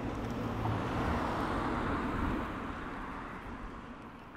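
City street traffic noise, a steady rush with a low rumble, fading out over the second half.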